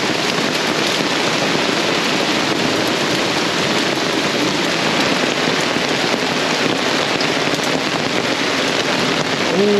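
Heavy rain falling steadily: a loud, dense hiss of drops. A brief voice-like sound comes in near the end.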